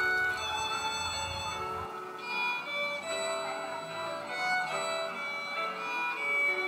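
Background music with a violin melody.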